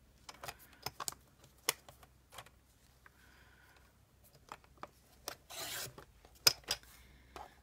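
Paper and scissors being handled at a craft table: scattered sharp clicks and taps, then a brief rustle of paper rubbing across the surface about five and a half seconds in, followed by another sharp click.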